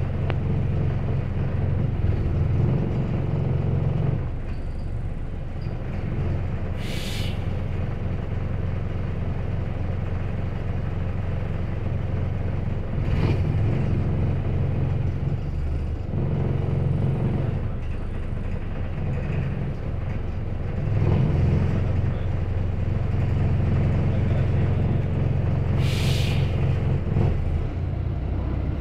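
A single-deck bus's engine and ride noise heard from inside the passenger saloon: a low drone that swells and drops as the bus moves off and slows. Short sharp hisses of pneumatic air break in about 7 seconds in and again near the end.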